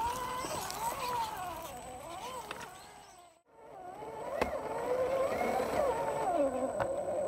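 Whine of a 1:10 Axial SCX10 II RC crawler's electric motor and gears, its pitch rising and falling with the throttle as it crawls over rock. It fades out briefly about halfway and comes back, with a couple of sharp knocks near the end.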